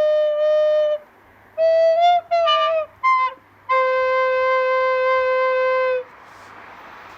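A flute-like wind instrument playing slow music. It holds a note, plays a few short notes that bend in pitch about two seconds in, then holds a long lower note that stops about six seconds in. A soft hiss follows.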